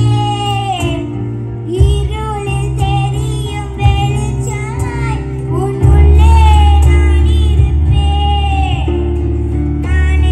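A young girl singing into a microphone, backed by a live band of acoustic guitar, electronic keyboard and hand drum. A heavy low bass comes in about six seconds in.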